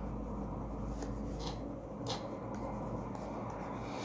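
Faint scratching of a stylus pen stroking on a drawing tablet, a few short strokes, over a low steady hum.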